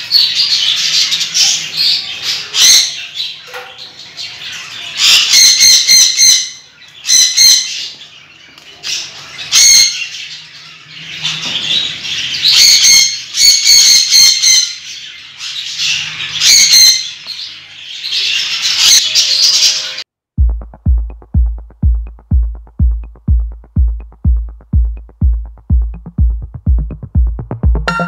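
A room of caged parrots calling, with repeated loud, harsh shrieks every few seconds over constant chirping. About twenty seconds in it cuts to electronic music with a steady kick drum about two beats a second.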